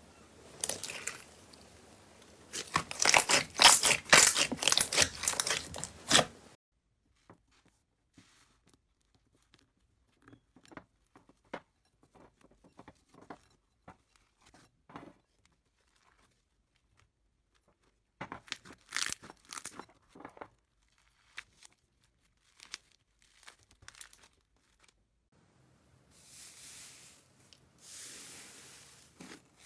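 Slime being squeezed and pressed by hand: dense crackling and popping for the first few seconds and again briefly past the middle, with long quieter stretches of sparse small clicks and pops in between, and a soft hiss near the end.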